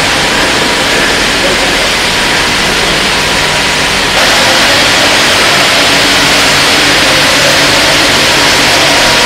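Loud, steady background noise of a factory hall: an even hiss over a low hum. It steps up and gets hissier about four seconds in.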